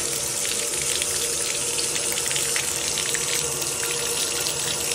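Water running steadily from a tap, starting abruptly.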